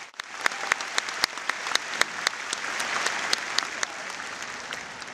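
Large audience applauding, with single sharp claps standing out from the mass; the applause dies away toward the end.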